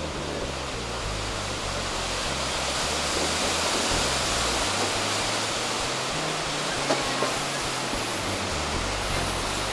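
Steady rushing of whitewater rapids on the Arkansas River, recorded from a moving train, with a short knock about seven seconds in.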